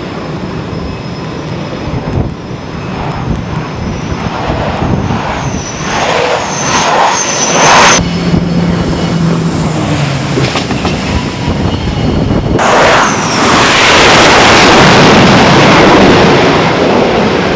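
EA-6B Prowler's jet engines on approach, a high whine growing steadily louder over the first eight seconds. The sound then changes abruptly to jet engine noise across a carrier flight deck, which swells into a loud, steady roar from about thirteen seconds in.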